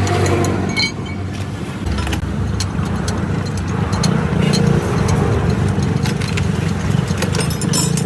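A motor vehicle engine running steadily, with scattered light clicks.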